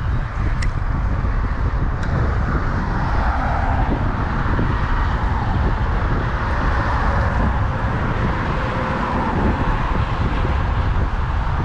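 Steady outdoor rumble of wind and road traffic from the neighbouring highway bridge, with the traffic noise swelling in the middle as vehicles pass.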